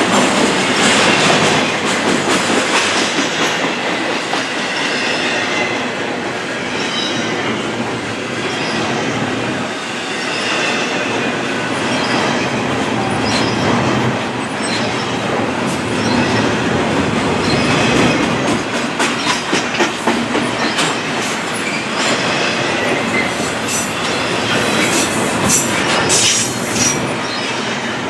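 Intermodal freight train rolling past at close range: a steady rumble of railcar wheels on the rails, with faint wheel squeal and a run of sharper clacks over the rail joints near the end.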